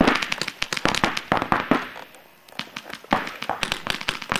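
Paintball markers firing rapid strings of sharp popping shots, stopping for about a second in the middle before firing again.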